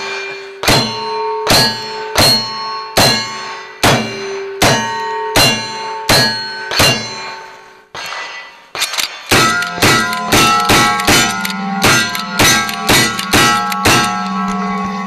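A pair of 1851 Navy Richard Mason conversion revolvers in .38 Special firing about ten shots, a little under a second apart, each followed by the ring of a struck steel target. About nine seconds in, an 1866 Yellowboy lever-action rifle fires a faster string, with more steel targets ringing.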